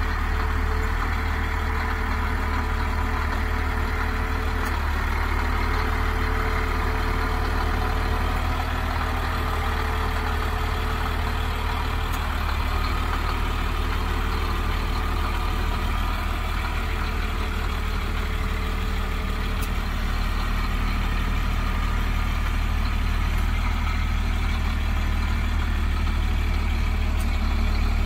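Ford F-750 truck engine idling steadily with a deep, even low hum.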